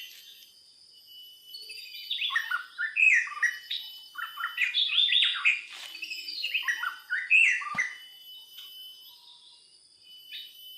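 Songbirds chirping: quick runs of short, falling notes come thick from about two seconds in until about eight seconds in, then thin out, over a faint steady high-pitched drone.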